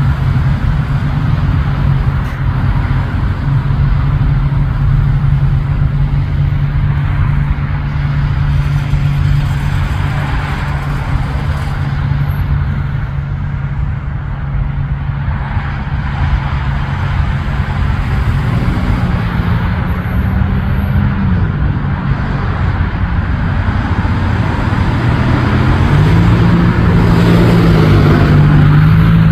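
Steady low hum of a road vehicle's engine idling close by, over a rumble of street traffic; the hum rises in pitch and settles back twice, and the whole sound grows louder near the end.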